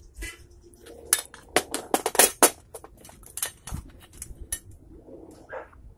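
A quick run of sharp metallic clicks and clinks, thickest in the first half, as the steel bullet-mold pliers and freshly cast lead pieces are handled on a sheet-metal work surface. A duller knock follows.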